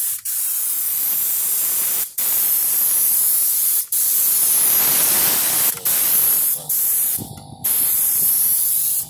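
Compressed-air spray gun spraying Raptor bed liner coating: a loud, even hiss in long bursts. The trigger is let off for a moment every couple of seconds, with a somewhat longer pause near the end.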